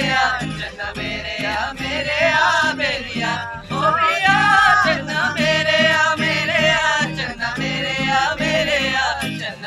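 A group of people singing together, unpolished and in unison, over a rhythmically strummed guitar.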